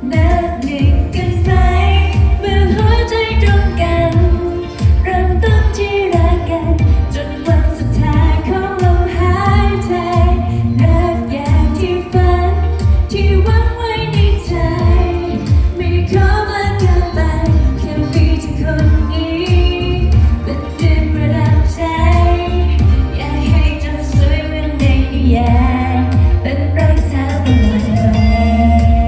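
A woman singing a Thai pop song live, amplified over a band with a strong bass.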